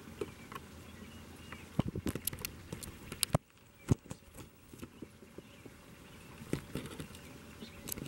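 Water pouring from an old hand pump's spout into a small rock-lined pond: a steady splashing trickle with irregular sharp ticks and taps, dipping briefly just after three seconds.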